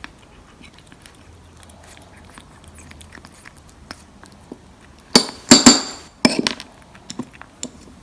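A kitten licks and chews wet cat food off a metal spoon with soft, faint clicks. About five seconds in, the spoon clinks loudly and rings three times in quick succession, followed by a few lighter taps.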